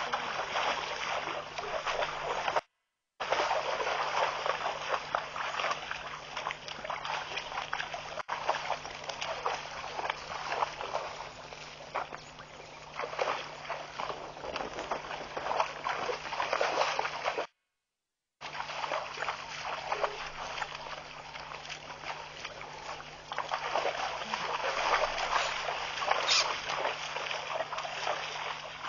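Water splashing and sloshing as wildebeest wade and drink at a waterhole, heard through a webcam microphone over a faint steady electrical hum. The sound cuts out twice briefly.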